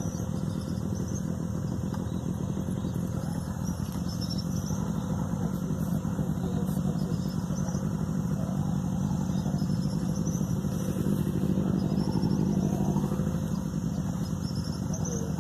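Engine of a motorized river canoe running steadily during the crossing, a low even drone.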